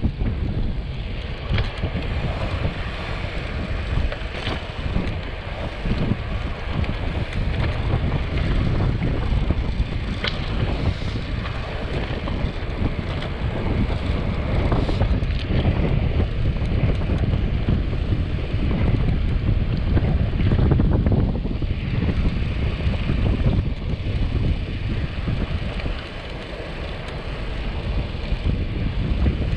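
Wind noise: rushing air buffets the microphone of a camera on a road bike descending at 32 to 37 km/h, giving a steady, fluctuating low rumble.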